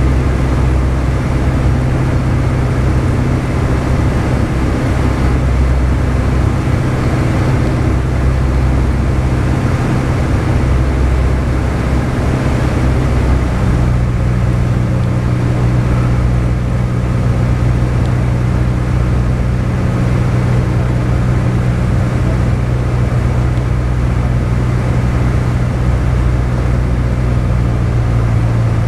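Piston engine and propeller of a single-engine light aircraft droning steadily, heard from inside the cabin on approach to landing. The pitch of the drone shifts slightly about 13 seconds in.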